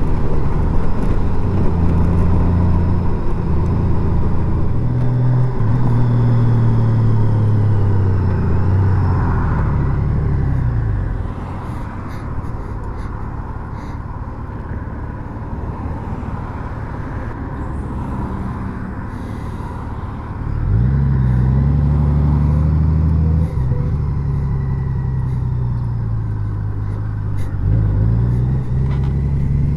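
Honda Gold Wing flat-six engine running under way, with road and wind noise. The engine note drops and quietens as the bike slows about ten seconds in, then rises again as it pulls away about twenty seconds in, with a shorter dip and rise near the end.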